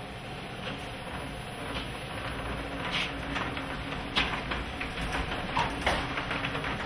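Electric garage door opener running, its drive arm moving a one-piece wooden tilt-up garage door, with a steady motor hum and light clicking and rattling from the door hardware.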